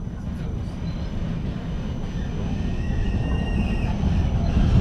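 A Vienna street tram heard from inside the car, its low rumble on the rails growing steadily louder as it pulls away and picks up speed, with a faint high whine partway through.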